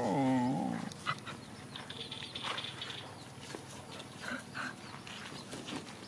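A dog gives one drawn-out whine that falls in pitch and stops about a second in, followed by faint scattered sounds of the dogs moving about.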